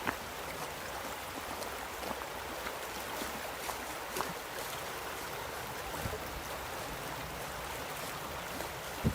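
River water flowing steadily over rocks, a continuous rushing with a few faint ticks scattered through it.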